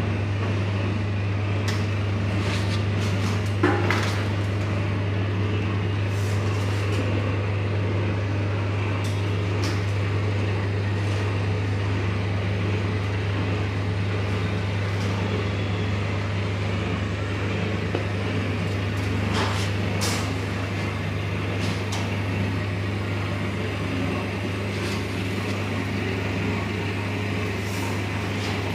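Electric commercial chicken griller running with its skewers turning: a steady low hum, with a few light clicks and knocks, the sharpest about four seconds in.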